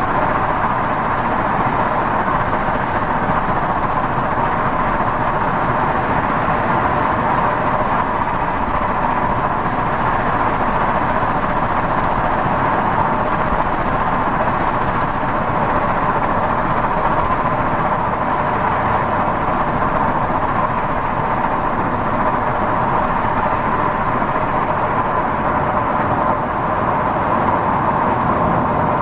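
Steady road noise of a car driving, heard from inside the cabin: tyre and engine noise held at a constant level, with no breaks or knocks.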